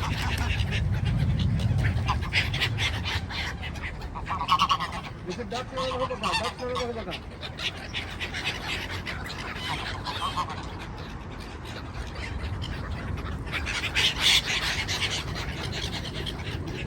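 Geese honking in short calls at intervals.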